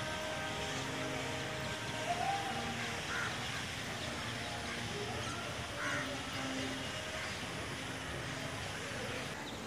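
A crow cawing about twice over steady outdoor background noise.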